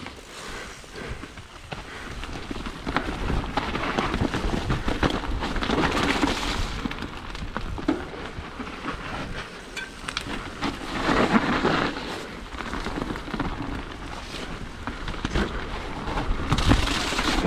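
Salsa Rustler full-suspension mountain bike descending a steep, muddy trail: tyres hissing and crunching through wet dirt, with the chain and frame rattling over the bumps and wind rumbling on the microphone. It gets louder in stretches.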